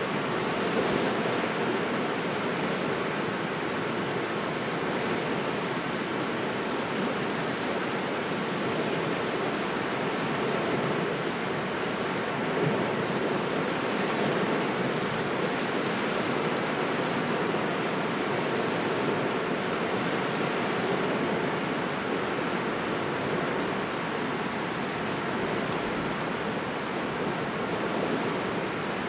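Waves washing on a shore under a cold wind: an even, steady hiss with no single wave breaks standing out.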